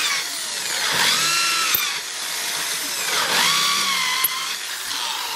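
Electric drill whining as its bit bores through wooden knife-handle scales. The motor pitch sags and climbs back twice, about a second in and about three seconds in, as the bit bites into the wood.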